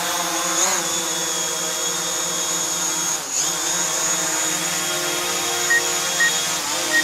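DJI Mavic Pro quadcopter's motors and low-noise propellers whining steadily, the pitch dipping briefly a few times as the motor speed changes. Short high electronic beeps, about two a second, begin near the end.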